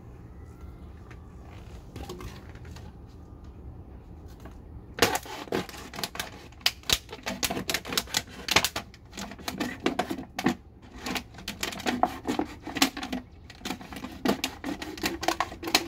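A thin plastic drink bottle crackling and crinkling in rapid, irregular clicks as a hand tool is worked into it and the bottle is gripped and turned, starting about five seconds in.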